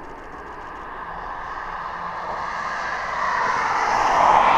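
Boeing 747-8 freighter's four turbofan jet engines at takeoff power as it rotates and lifts off. The engine noise swells steadily as the jet comes toward the listener, with a faint whine in it, and is loudest near the end.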